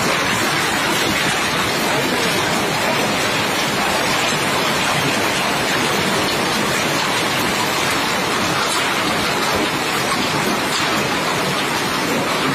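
Hail falling heavily onto a terrace during a hailstorm: a loud, steady, dense din of countless small impacts.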